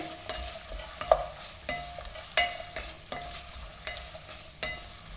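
Chicken and vegetables sizzling in hot oil and ghee in a non-stick kadai while being stirred. A utensil knocks and scrapes against the pan about every 0.7 seconds, each knock ringing briefly over the steady sizzle.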